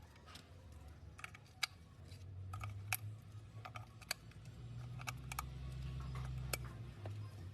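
Irregular light clicks and taps from a wooden alarm clock being handled and its buttons pressed, over a low steady hum.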